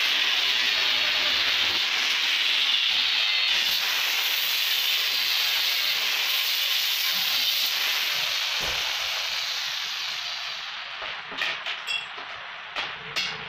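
Handheld angle grinder grinding the steel slats of an iron chair: a loud, steady hiss that fades away after about eight seconds. A few sharp clicks follow near the end.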